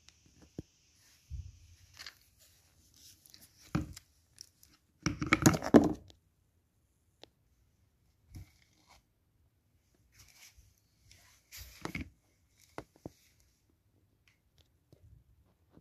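Plastic wrapping of a toy capsule being torn and crinkled by hand, with light clicks and knocks of the plastic shell halves. The loudest tearing comes about five seconds in, and a shorter rustle near twelve seconds.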